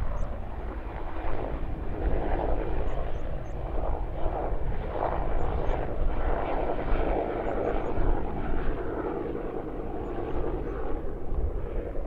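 A distant engine-like drone that swells and fades over several seconds, with wind rumbling on the microphone.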